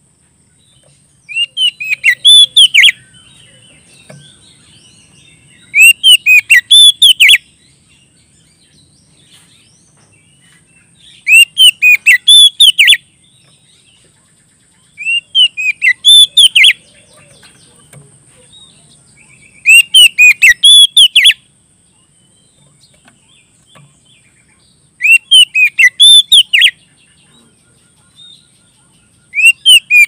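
Oriental magpie-robin (kacer) singing loud, full-voiced phrases, each a quick run of sweeping whistled notes lasting under two seconds, repeated six times about every four to five seconds. This is the bird's challenge song, calling out a rival.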